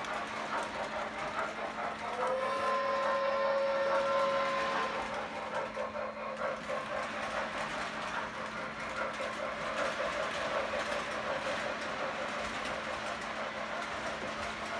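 Model passenger train running on the layout track with a steady rolling clatter. From about two seconds in, a single steady whistle tone sounds for about two and a half seconds.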